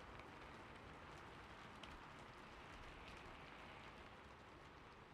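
Faint, steady rain: an even hiss with scattered ticks of individual drops.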